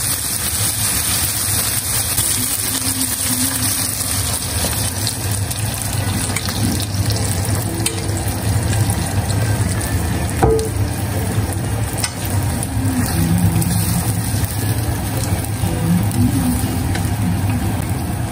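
Tomatoes, green onion and beaten egg sizzling in a nonstick frying pan, stirred with wooden chopsticks, over a steady low hum. One sharp click about ten seconds in.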